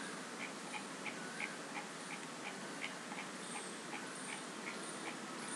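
Faint, even ticking, about three ticks a second, over a low room hiss.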